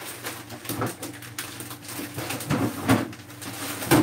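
Groceries being handled and put away: scattered light knocks and rustling from packages and containers being moved.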